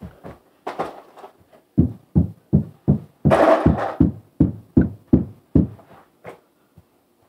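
A quick run of loud, low thumps, about three a second, from feet stamping and landing on the floor while dancing, with a brief scuffing rush in the middle.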